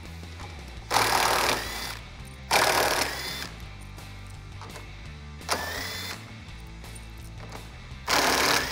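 Cordless impact driver with a 7 mm socket backing out bumper screws in four short runs, each under a second and each starting with a rising whine as the motor spins up. Background music plays throughout.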